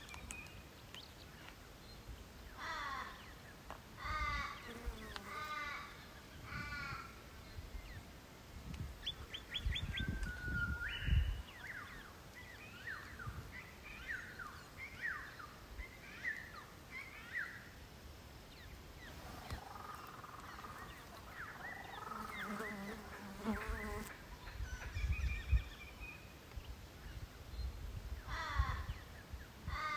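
Birds calling outdoors: runs of drawn-out, falling crow caws, three or four at a time, near the start and again at the end, and a quick series of chirps in the middle. Now and then a low rumble, loudest about 11 and 25 seconds in.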